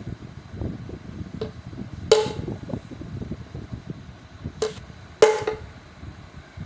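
Three sharp knocks with a short ringing, about two seconds in and twice more near the end, over a low rumbling background.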